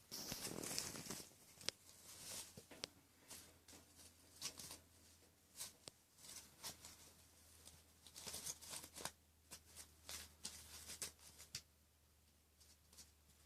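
Faint, irregular scratching, pattering and rustling of playing kittens' paws and claws, a scatter of quick light ticks, busiest near the start and again past the middle, over a steady low hum.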